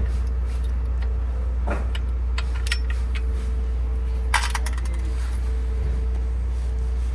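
Metal bolts and hand tools clinking: three short metallic clinks, the second and third ringing briefly, the third the loudest, over a steady low hum.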